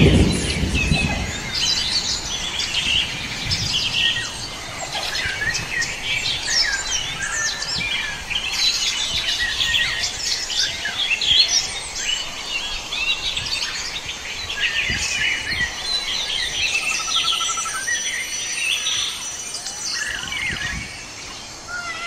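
Dense chorus of many forest birds calling at once: overlapping chirps, whistles and short trills, with a low rumble in the first second.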